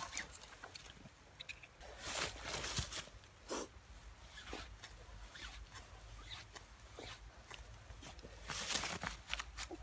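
Auger bit boring by hand into a frozen hardwood log, making irregular rasping, scraping strokes as it cuts; the frozen wood makes it hard going.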